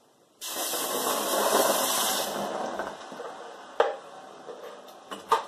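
Blended black-bean sauce hitting hot oil in a saucepan: a loud sizzle that starts suddenly about half a second in and dies down over the next few seconds. One sharp knock near the end of it.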